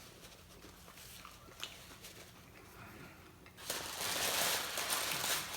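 Faint small handling sounds, then about two-thirds of the way in a loud, steady crinkling of a paper taco wrapper being unwrapped.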